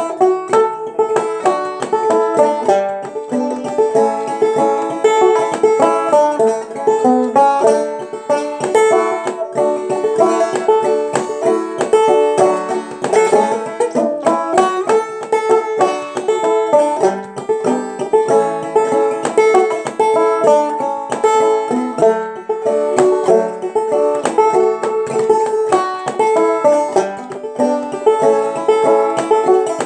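Banjo played clawhammer style: a steady, rhythmic old-time tune of quick plucked notes, capoed up to sound in E.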